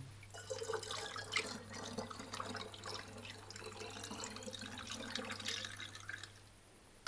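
Limoncello poured from a large glass jug through a plastic funnel into a glass bottle, a steady splashing trickle of liquid that stops about half a second before the end.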